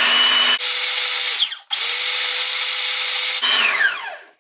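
Electric food processor motor whirring as its blade chops dried sorrel (hibiscus) petals finely, in two bursts with a short break about a second and a half in. Its whine falls away as it spins down near the end.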